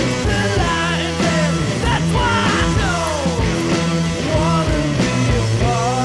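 Background rock music, with a lead line that slides down in pitch a couple of seconds in.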